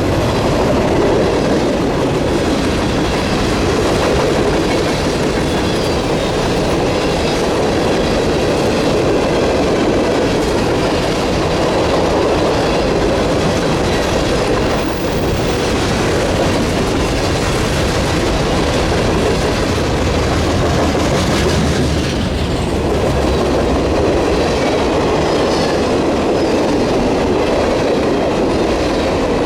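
Freight train cars rolling past, a steady loud rumble with the wheels clicking over the rail joints.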